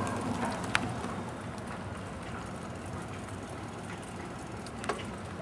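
Bicycle riding along: a steady rolling and rushing noise, with two sharp clicks, one about a second in and one near the end.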